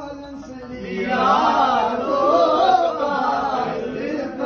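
A man singing unaccompanied in a drawn-out, wavering, chant-like line, growing louder about a second in.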